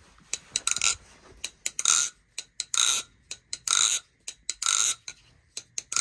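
A carbon-fiber Replicant-clone balisong being flipped, its freshly lubed pivots swinging and its handles clacking. There are sharp clicks and short metallic rattles, the longer ones coming about once a second.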